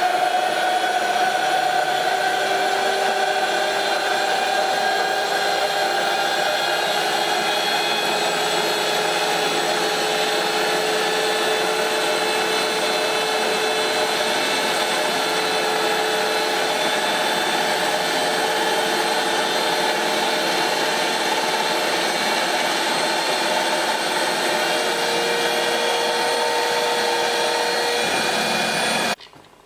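Electric drill running steadily, spinning a cue shaft in a homemade lathe while a carpet-knife blade trims the newly glued leather tip. The motor's whine holds a steady pitch and cuts off abruptly near the end as the drill is switched off.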